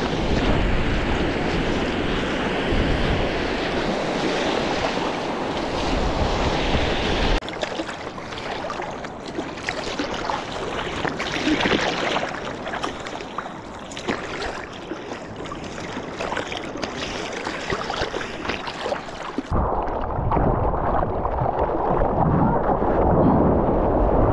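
Seawater splashing and rushing past a surfboard-mounted action camera, with wind on the microphone. The sound changes abruptly twice, and in the last few seconds it turns muffled and deeper as the board rides a wave.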